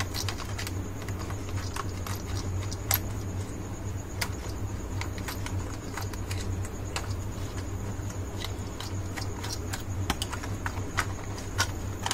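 Scattered, irregular small clicks and taps of a screwdriver turning the screws in a plastic toy car's underside and of hands handling its plastic body, over a steady low hum.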